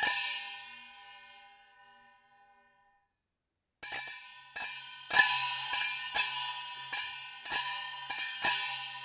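Chinese cymbal struck once and left to ring, the shimmer fading away over about two and a half seconds. After a short silence it is struck again and again, about twice a second, each crash ringing into the next; the loudest strike comes about five seconds in.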